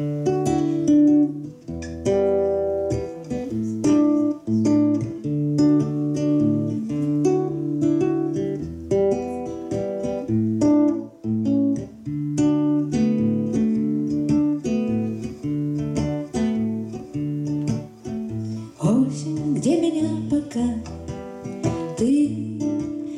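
Acoustic guitar and violin playing a slow blues introduction, the violin holding long notes over the strummed guitar. Near the end the violin drops out and a woman's voice comes in singing over the guitar.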